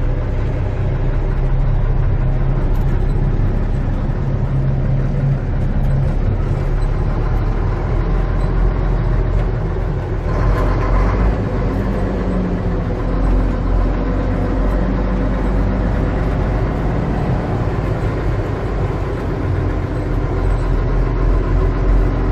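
Mack ENDT673 Thermodyne turbo-diesel inline-six of a 1978 Mack CF611 fire truck running steadily at low speed, heard from inside the cab. A short hiss comes in about ten seconds in.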